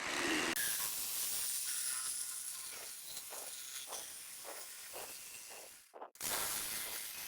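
A steady hiss, like air or spray rushing, that starts abruptly, slowly fades, cuts out briefly about six seconds in and starts again.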